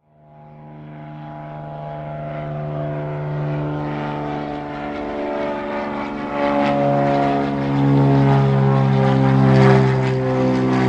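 Propeller aircraft engine droning with a steady hum. It fades in from silence and grows louder, and its pitch shifts slightly a couple of times.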